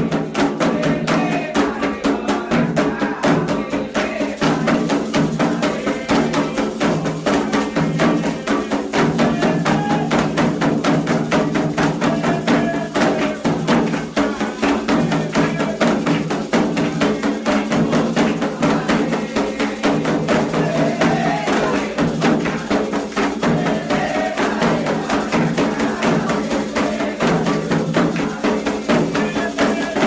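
Candomblé ritual drumming on atabaques, a fast, unbroken rhythm for Iansã's dance in the Angola style, with voices singing a chant over it.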